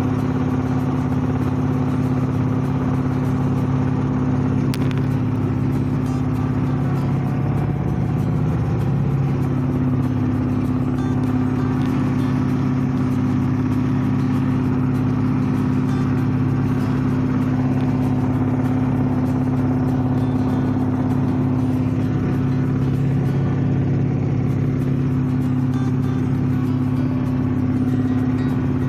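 Inboard engine of a small wooden fishing boat running steadily under way, a constant low hum that holds one pitch throughout.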